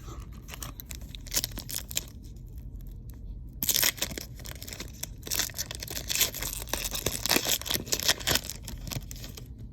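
Panini Haunted Hoops basketball card packs being torn open, the wrappers crinkling and crackling, in rustling bursts that are loudest a few seconds in and again through the second half.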